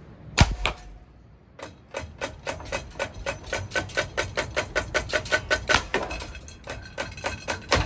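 A loud metallic bang, then a fast run of metallic clanks, about six a second, each with a ringing tone, as a Casablanca Four Seasons ceiling fan is being wrecked.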